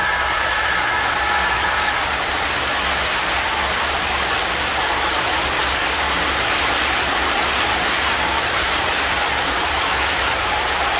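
O-gauge model passenger cars rolling past close by on three-rail track, a steady rattling rumble of metal wheels on rail. A few faint steady tones fade out about two seconds in.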